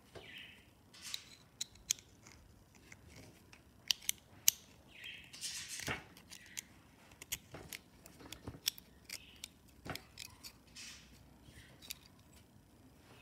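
Irregular small metal clicks, taps and scrapes as a thin steel music-wire link is worked by hand into a small steel trigger mechanism. A few sharper clicks come about four seconds in.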